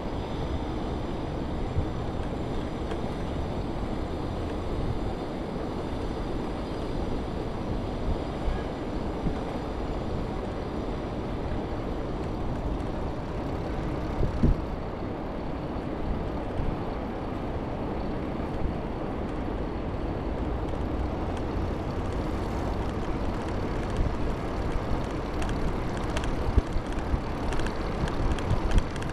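Steady rumbling noise of a bicycle ride over block paving, with tyre noise and wind on the microphone, broken by a few sharp knocks from bumps, one about halfway and several near the end.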